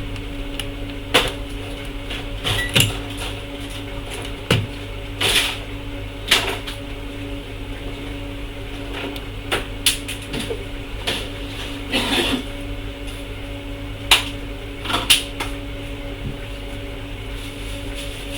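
Steady electrical mains hum with about a dozen sharp clicks and taps at irregular intervals, typical of tools and test probes being handled on a repair bench.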